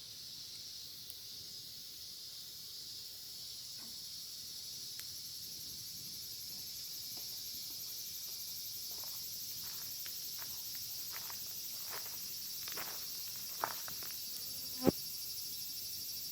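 Cicadas droning in a steady, high-pitched chorus, with a wood fire crackling and popping now and then; the sharpest pop comes near the end.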